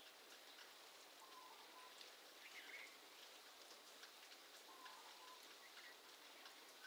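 Faint, short bird calls: two brief level whistles and one short higher note, over a light patter of small drips or raindrops.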